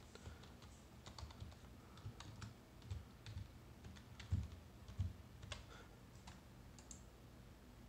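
Faint typing on a computer keyboard: an irregular run of single key clicks as a password is entered.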